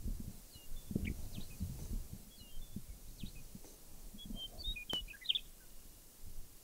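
Irregular low thumps and rumbles, with short bird chirps scattered high above them and a small cluster of chirps about five seconds in.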